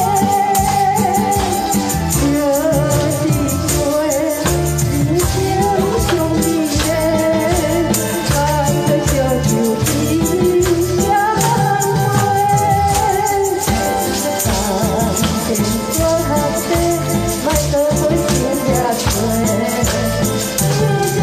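A woman singing a Taiwanese Hokkien song over a backing track, with a handheld jingle tambourine shaken along to the beat.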